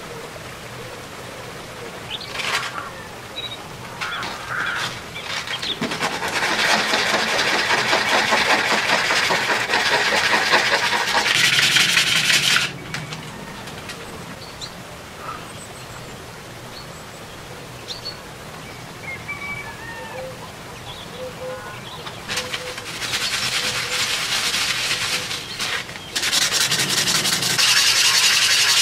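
A small clear lens piece rubbed by hand in circles on a sheet of sandpaper, a gritty scraping in two long spells of several seconds each, as the lens is ground to shape.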